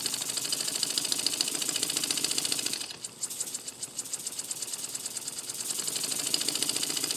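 A miniature single-cylinder oscillating steam engine running on compressed air, making a rapid, even ticking of exhaust puffs. It slows and nearly stops about three seconds in, then picks up speed again about a second later.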